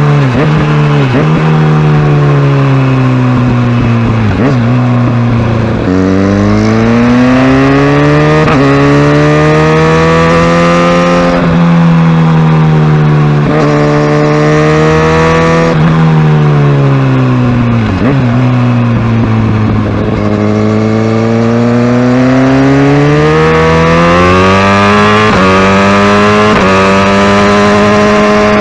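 Kawasaki Ninja ZX-6R's inline-four engine under way, its note climbing and dropping over and over as the rider accelerates, shifts and eases off, with longer pulls in the middle and near the end.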